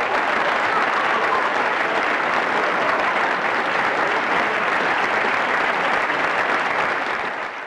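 Applause from a crowd, steady and then fading out near the end.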